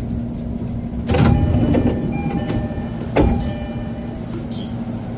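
Door chime of a JR East E231 series 1000 commuter train sounding with an abnormal, distorted tone: two chimes, about one second and three seconds in, each starting with a sharp crackle before its tones ring on. A steady low hum sits underneath.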